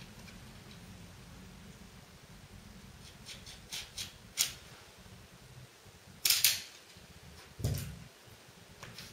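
A few short clicks and scrapes of hand work at a wall, a louder brief rasp about six seconds in, then a dull thump, over a faint low hum.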